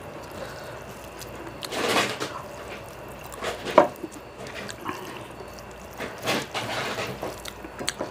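Bare hand mixing cooked rice with curry gravy on a plate: wet, sticky sounds in a few bursts, about two, three and a half, and six to seven seconds in, with one sharp click near the four-second mark.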